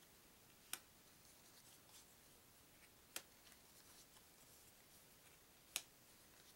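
Thin paper trivia cards being flipped off a small deck one at a time, each giving a short, sharp snap: three snaps about two and a half seconds apart, with near silence between.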